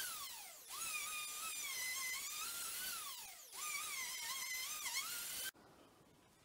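Bosch plunge router running at speed while flattening a wooden tabletop, a high wavering whine. Twice the whine slides down in pitch and then comes back up, and it cuts off abruptly about five and a half seconds in.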